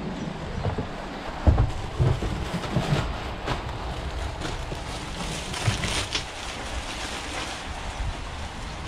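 Wind buffeting the microphone, with a few sharp knocks and some rustling as gear and a plastic sack are moved about in a work van's cargo bay. The loudest knock comes about a second and a half in.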